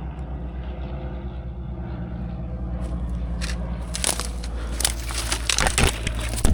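Dry brush and twigs crackling and snapping as someone pushes through thick vegetation. The cracking starts about three seconds in and grows denser and louder, over a steady low rumble.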